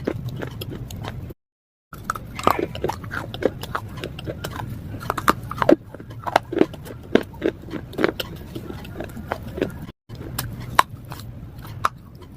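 Close-up biting and chewing of hard slate pieces: a string of sharp, irregular crunches and cracks, broken twice by brief cuts to silence.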